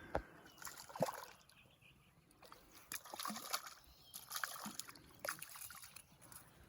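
Faint, irregular sloshing and trickling of water, with a couple of small knocks near the start.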